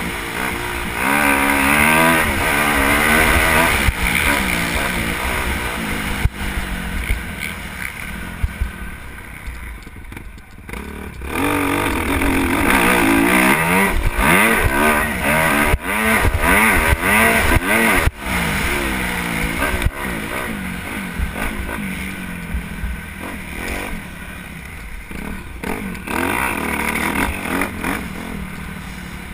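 Dirt bike engine revving hard, its pitch repeatedly climbing and dropping as the throttle is opened and chopped, with a quieter lull about ten seconds in.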